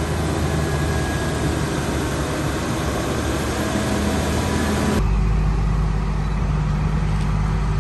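Idling heavy vehicle engines with a steady rushing noise over them. About five seconds in the mix changes abruptly: the hiss drops and a deeper engine rumble comes forward.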